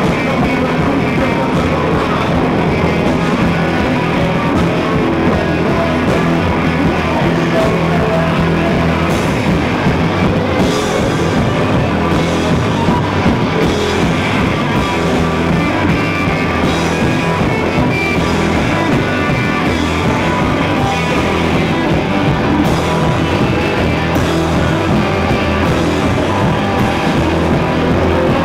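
A live rock band playing at steady full volume: two Telecaster-style electric guitars, bass guitar and drum kit.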